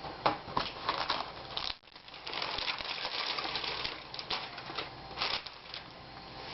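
Handling noise from an old laptop LCD panel being taken out of its lid: a quick run of light clicks and taps, a rustling stretch after about two seconds, then a few more scattered clicks.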